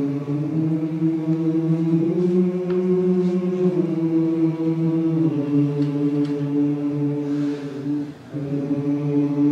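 Choir singing long sustained notes together as a vocal warm-up, the pitch shifting to new notes a few times. There is a short break for breath about eight seconds in, then the held notes start again.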